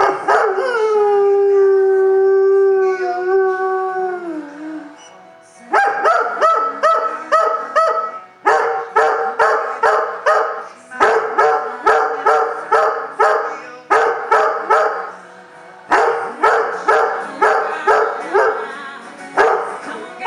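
Giant Schnoodle howling along to a song: one long held howl that slides down in pitch near the end, then fast runs of short yipping howls, about three a second, with short pauses between runs. A song plays quietly underneath from a phone speaker dock.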